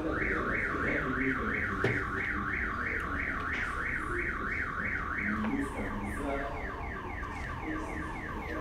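Electronic alarm siren warbling: a rising sweep repeated about three times a second. After about five seconds it switches to a fainter, different sweep pattern.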